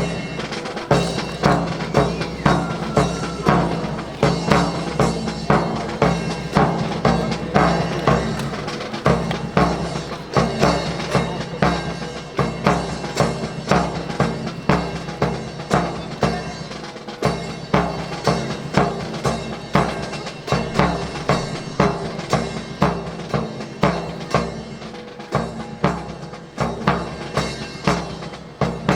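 A steady percussion beat of sharp strokes, about two a second, with drums and a wood-block-like click, accompanying a military drill display.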